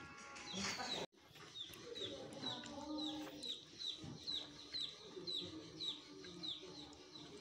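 Chicks peeping: a steady run of short, high cheeps that fall in pitch, about two or three a second, starting after an abrupt cut about a second in. Before the cut, a brief stretch of voice or music.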